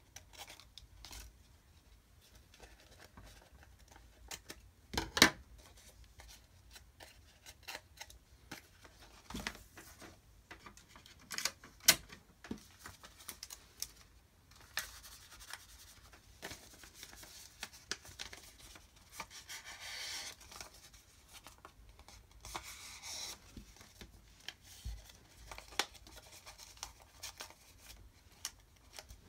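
Scissors snipping through paper in short, sharp cuts, the loudest about five seconds in, along with paper being folded and rubbed, rustling between the cuts.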